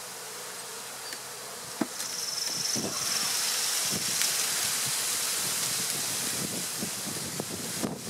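Honey bees buzzing steadily around an open hive, with a single sharp knock about two seconds in. Right after the knock a louder hiss comes in and holds until near the end.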